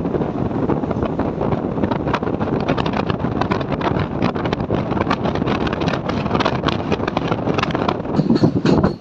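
Passenger train running at speed: steady rumble of wheels on the track with rapid clicking and clattering, and wind buffeting the microphone.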